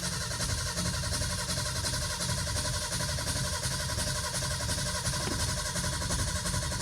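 1978 Ford F-150's engine cranking over steadily on the starter motor without catching; the owner suspects it has no spark.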